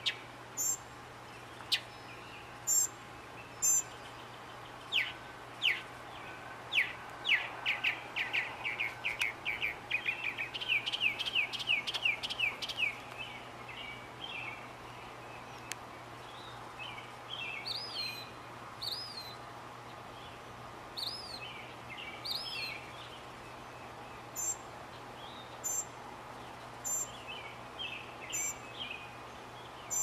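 Mockingbird singing: a string of short, sharp high notes, then a fast run of repeated notes that speeds up, later giving way to curving whistled notes. A steady low hum and faint hiss lie underneath.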